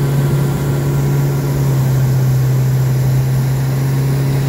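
Outboard motor of a small aluminium fishing boat running steadily at speed, a constant engine drone with water and wind rushing past the hull.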